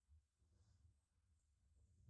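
Near silence, with only a very faint low rumble.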